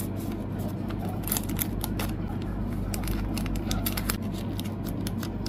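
Thin clear plastic photocard sleeves crinkling and crackling in the hands as a photocard is slid into a sleeve: many short, crisp clicks, over a low steady hum.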